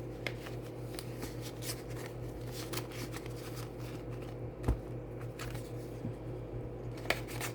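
Paper rustling and light clicks of dollar bills and paper challenge cards being handled and sorted, over a steady low hum. A louder soft knock comes a little past the middle, and a sharp tap near the end.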